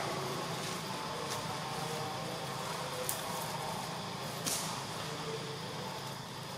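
Steady background hum and hiss with faint pitched tones drifting through, broken by three brief clicks or rustles spread across it.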